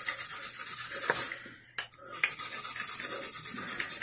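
A round cleaning tool scrubbed quickly back and forth inside a PVC pipe end in fast, even rasping strokes, cleaning the joint surface before priming and gluing. The scrubbing stops briefly with a click about a second and a half in, then starts again.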